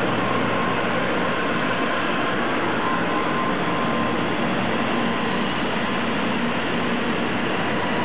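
N700 series Shinkansen train pulling away from a stop at low speed: a steady rolling noise of the passing cars with faint steady tones over it.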